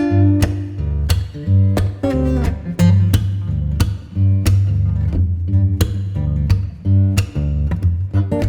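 Background music: guitar-led instrumental with strummed and plucked notes over a steady bass.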